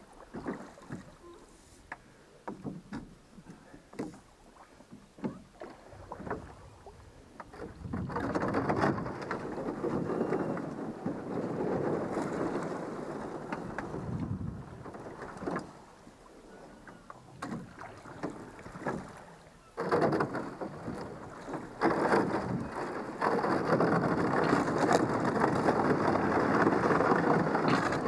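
Thin lake ice breaking up against the bow of a small rowing boat as it is rowed through, a dense crackling and tinkling of shattering ice. It comes in two long stretches, the first from about eight seconds in, the second and louder from about twenty seconds in. Before that there are only scattered small clicks and splashes from the oars.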